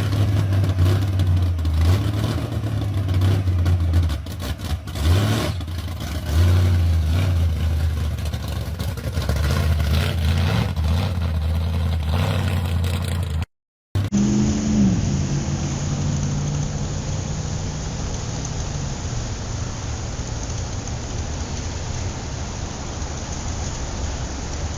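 Hot rod car engines from two clips. The first runs loud and uneven, with blips of throttle. After a brief cut, the second engine's revs fall quickly back and it settles to a steady low idle.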